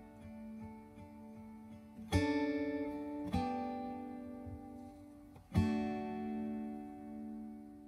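Background music: acoustic guitar strumming chords, with three strong strums about two, three and a half and five and a half seconds in, each left to ring and slowly fade.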